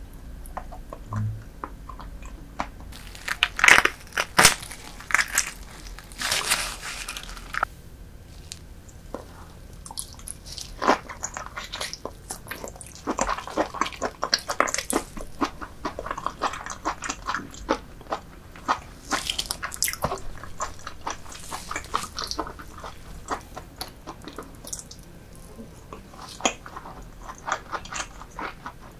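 Close-miked eating of soy-marinated raw lobster and salmon roe with rice: biting and chewing with many sharp wet clicks. The loudest stretches come a few seconds in, around the middle, and about two-thirds of the way through.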